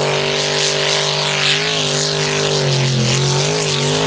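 Off-road truck engine held at steady high revs, a constant drone that wavers slightly in pitch about three seconds in, over a steady hiss.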